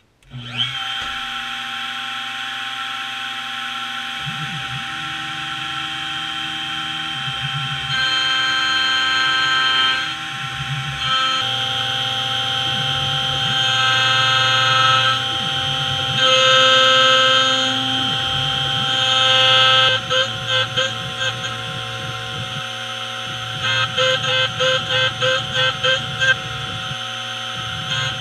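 Small CNC mill facing an aluminum block with a 1/4-inch end mill: a steady high spindle whine over the hum of the stepper motors, shifting in pitch and loudness every few seconds as the axes change moves. From about twenty seconds in, the sound turns into a rapid, regular pulsing, about three a second.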